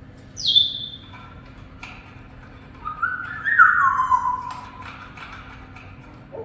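Pet parrot calling: a short high whistle that drops in pitch about half a second in, then a louder call of about a second and a half, sliding down in pitch, starting around three seconds in.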